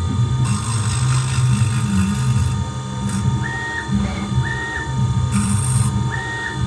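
Tormach 440 CNC mill running a light finishing pass on a wooden pistol slide: a steady motor hum, with short high whines four times in the second half as the axes move, and two stretches of hissing.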